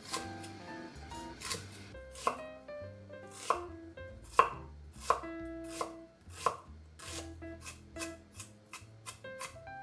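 Kitchen knife cutting a peeled onion on a wooden cutting board. Single sharp cuts come every half second to a second, then quicken into faster chopping, about three a second, near the end.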